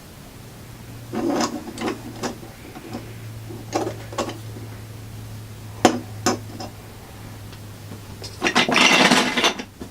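Plastic Lego Duplo figures and pieces being handled: scattered clicks and knocks against a hard surface, then about a second of denser clattering near the end.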